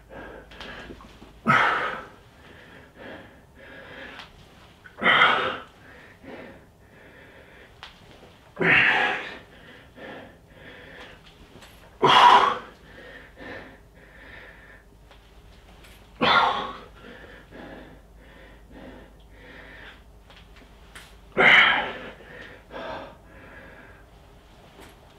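A man breathing hard during slow push-ups: a loud, strained breath out about every three to four seconds, with quieter breathing between. The breathing is the sound of exertion late in a long set.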